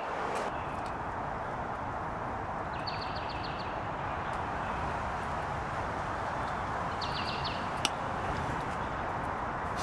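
Steady rain falling on the tent, with a bird trilling briefly twice in the background. Just before the end, a single sharp clink of a knife against a glass bowl.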